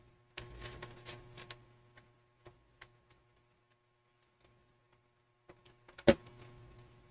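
Hands handling satin ribbon and a crocheted piece while tying a bow: soft rustling for about a second near the start, a few small clicks, and one sharp tap about six seconds in, the loudest sound.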